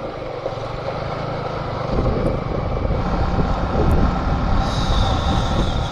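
Motorcycle engine running as the bike rides slowly over a rough, potholed mud track, with low rumbling jolts that grow about two seconds in. A high steady whine joins near the end.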